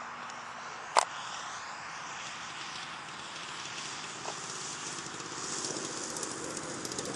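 Radio-controlled model airplane coming in to land. There is a sharp click about a second in, then a faint falling whine as the motor winds down. Near the end comes a crackling scrape as the plane touches down and slides across the grass.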